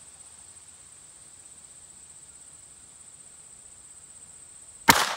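Steady high-pitched insect drone, then near the end a single sharp shot from a Ruger LCP II .22 LR pistol firing a 40-grain Aguila Interceptor round, with a short echoing tail.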